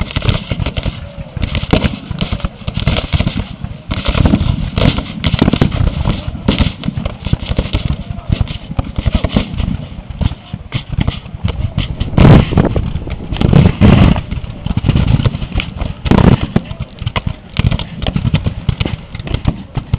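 Continuous ragged black-powder musket fire from reenactors' battle lines, many shots crackling over one another, heaviest about twelve to fourteen seconds in and again about sixteen seconds in, over a steady low rumble.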